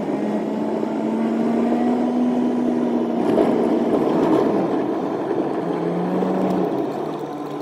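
Pickup truck driving while towing a loaded trailer, heard from inside the cab: a steady engine drone with tyre and road noise, the road rush swelling for a second or so midway.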